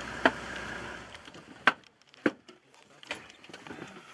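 Open safari vehicle's engine running, then shut off about a second in. A few sharp knocks and clanks follow.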